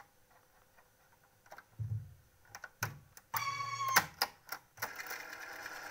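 Cassette deck being stopped and started: sharp mechanical clicks of its transport buttons and a dull thump, with a short snatch of song that cuts off after about half a second, and music starting again near the end.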